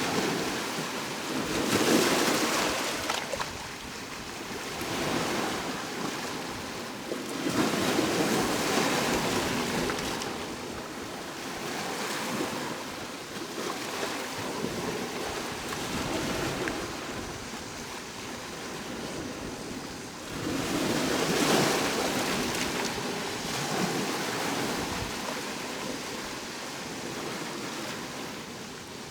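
Ocean waves breaking and washing on the shore, swelling and falling back every few seconds, with bigger breakers about two, eight and twenty-one seconds in.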